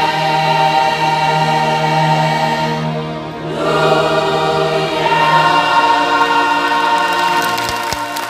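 A choir singing long sustained chords, with a short break about three seconds in before a new held chord. Applause starts near the end as the chord is still held.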